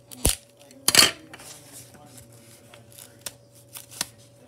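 Clear sticky tape and paper being handled. There is a sharp click, then about a second in a short, loud rip of tape pulled from the roll, followed by softer paper rustles and a few small clicks.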